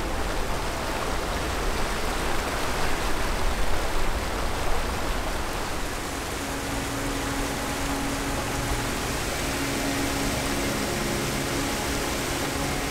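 A fast mountain creek rushing and splashing over rocks, a steady wash of water noise.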